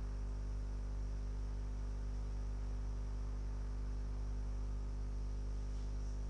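Steady low electrical hum with a faint hiss, unchanging throughout: mains hum on the audio feed.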